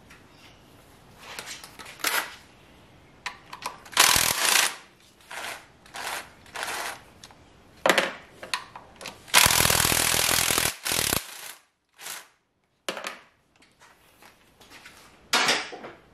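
Cordless impact driver running in short bursts to loosen bolts, the longest a rapid hammering rattle of about two seconds near the middle. Clicks and clatter of the tool and metal parts come between the bursts.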